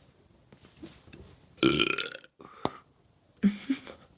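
A person's loud burp blown into bubblegum, lasting well under a second, about a second and a half in. It is followed by a sharp pop and a shorter sound near the end.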